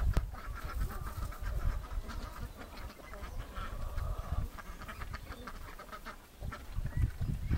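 A flock of ducks quacking in many short, overlapping calls, over a low, uneven rumble.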